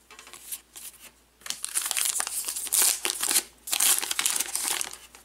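Trading card pack wrapper being torn open and crinkled by hand. A few light clicks come first, then about three and a half seconds of loud crinkling.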